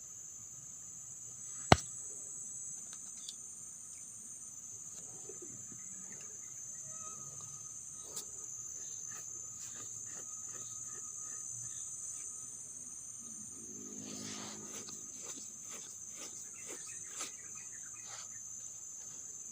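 Steady high-pitched insect chorus, typical of crickets, with a single sharp click about two seconds in and a few fainter clicks later.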